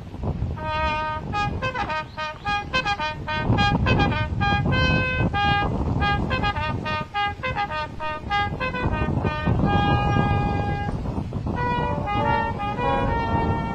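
Brass band with trombones and tubas playing a tune, starting about half a second in, with wind rumbling on the microphone.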